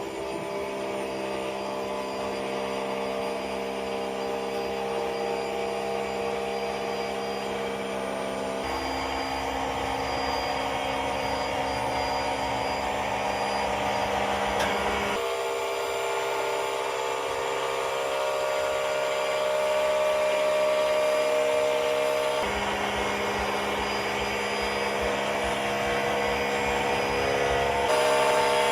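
Small motor running steadily with a whine as it drives a truck's tilting bed up and back, its tone shifting in steps every several seconds as the load changes.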